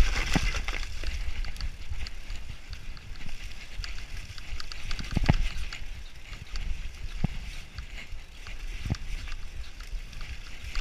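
Mountain bike descending a muddy, rooty forest trail: a constant low rumble of tyres and frame over the dirt, with rattling clicks and a few sharper knocks as the bike jolts over roots and bumps.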